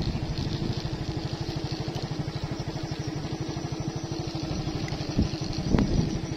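Vehicle engine running at low speed, a steady, fast low pulsing, with one brief sharp click near the end.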